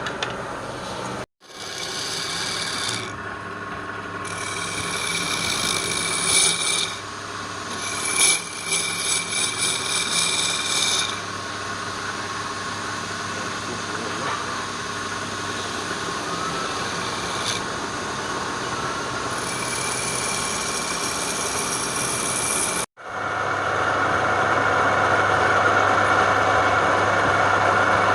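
A woodturning lathe's motor running steadily while a tool cuts and scrapes the spinning wood in rasping bursts of a few seconds each, mostly in the first half. The sound drops out abruptly twice and after the second break comes back louder and steadier.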